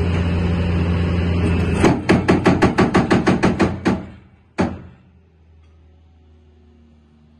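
Hydraulic breaker on a Cat 330C L excavator hammering rapidly, about seven blows a second for two seconds, then one last single blow, over the excavator's diesel engine running steadily. Afterwards the sound falls away to a faint low hum.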